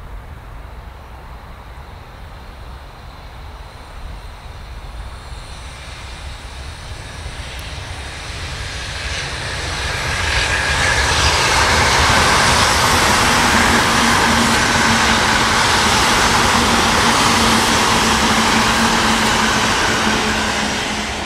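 JR East E657 series electric multiple unit passing close by, its wheels running over the rails. The noise builds as it approaches, stays loud with a steady hum while the cars go by, then falls away near the end.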